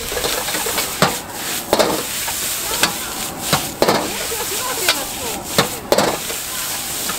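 Metal ladle scraping and knocking against a wok as rice is stir-fried over high heat, under a steady sizzle. The strikes are sharp and irregular, about one every half second to a second.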